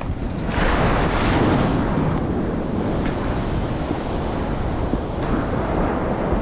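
Surf washing up the beach with wind buffeting the microphone; the rush of water swells about half a second in and again a little after five seconds.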